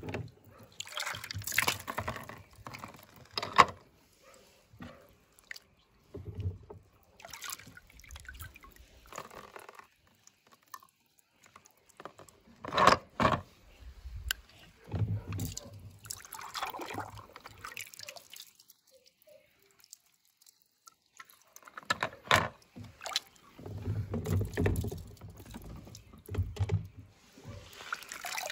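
Water sloshing and splashing in a shallow plastic tub as a hand sweeps through it and lifts a wet toy truck out, with dripping. The sounds come in irregular bursts with short pauses, and there is a quieter lull about two-thirds of the way through.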